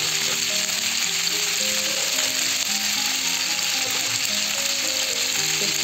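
Diced green pumpkin sizzling steadily in hot oil in a kadhai, over background music of held notes.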